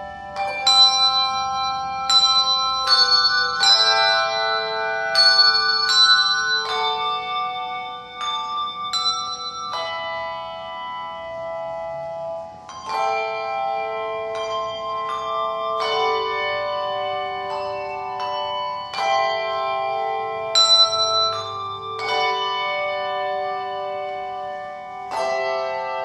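Handbell choir playing a slow piece: chords of brass handbells struck together every second or two, each note ringing on until the next.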